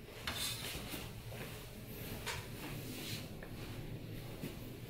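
Faint handling noise as a grey cable is fed into an analyzer's metal chassis: a few light taps and rustles over a low background.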